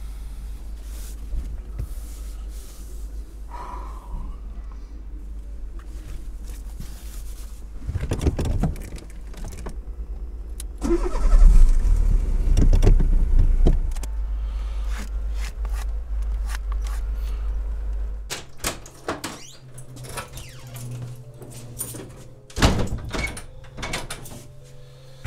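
Car engine running, heard from inside the cabin as a steady low rumble that swells louder for a few seconds about eleven seconds in. In the last few seconds, keys jangling and sharp clicks at a front door.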